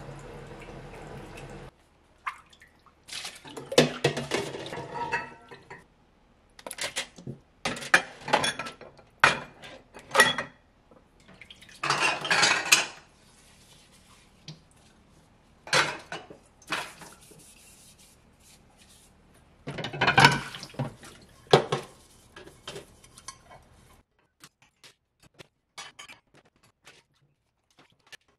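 Dishes, plastic bowls and tongs clattering against a stainless steel sink and basin as they are set into a basin of water, with splashing in irregular clusters. Steady running water is heard at the start and cuts off about two seconds in; the clatters grow sparse and faint near the end.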